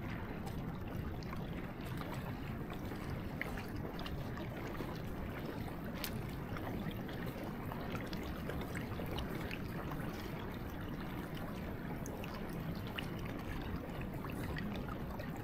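Glacier lagoon water lapping and trickling among stranded ice chunks and stones at the shore: a steady wash with a few faint scattered ticks.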